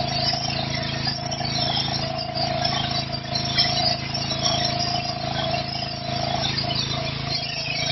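Petrol-engined high-pressure washer running steadily: the engine's hum under the hiss of the water jet spraying onto stone paving slabs.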